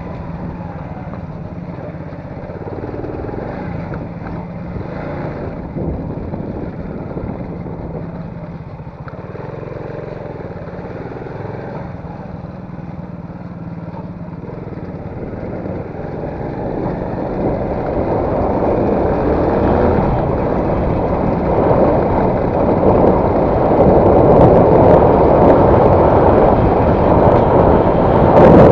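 A motor vehicle running on the move, its engine and road noise growing steadily louder from about halfway through.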